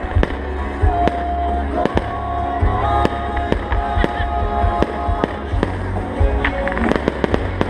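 Fireworks going off over music: frequent sharp bangs and cracks over a constant low rumble, with a rapid cluster of crackles near the end.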